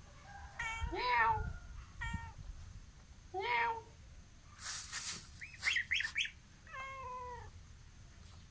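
A kitten meowing repeatedly, each meow a short arching cry, with a few high, short peeps from a gosling partway through.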